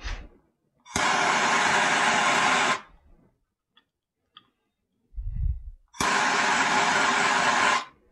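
Hand-held heat tool shrinking heat-shrink tubing over crimp terminals: two bursts of steady hissing, each just under two seconds long, each starting with a click and cutting off abruptly.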